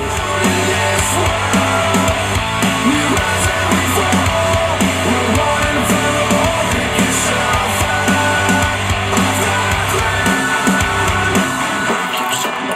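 Death metal song with drums and guitar playing through Dayton Audio B652 Air bookshelf speakers driven by a Yamaha A-S301 integrated amplifier. The deep bass drops out near the end.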